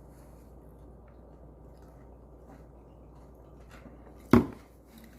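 Quiet room hum with a few faint clicks, then one loud, sharp knock close to the microphone about four seconds in that dies away quickly.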